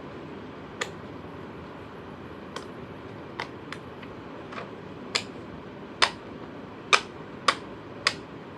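A fidget toy being clicked by hand: about ten sharp, separate clicks at an uneven pace, louder and closer together in the second half.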